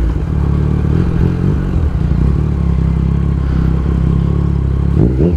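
A 2024 Yamaha MT-09's three-cylinder engine running through an aftermarket exhaust at steady revs while riding. Near the end the engine note dips and rises as the revs change.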